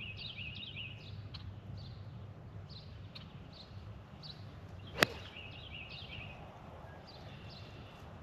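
A golf club strikes the ball once, a single sharp crack about five seconds in. Birds chirp repeatedly throughout over a low steady rumble.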